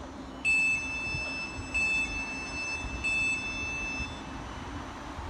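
Three electronic beeps from a stationary Siemens Desiro electric train, about 1.3 seconds apart: each is sharp at its onset, then holds on more quietly. This is typical of the door-closing warning before departure. The train's steady low hum runs beneath.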